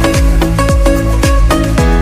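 Electronic background music with a steady beat: a kick drum about every half second under sustained synth notes.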